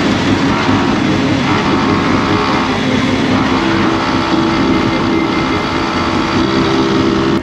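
Motorcycle engine running at road speed under heavy wind and road noise on a bike-mounted microphone, the engine note shifting a little in pitch as it goes.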